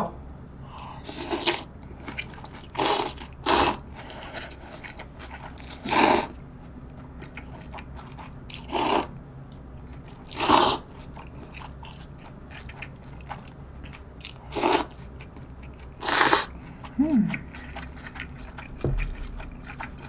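A person slurping noodles from a bowl of cold noodle soup: about nine short, loud slurps spread through, with quiet chewing in between.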